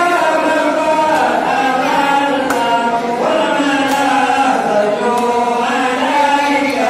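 Many voices chanting together in unison, holding long notes that step to a new pitch every second or two.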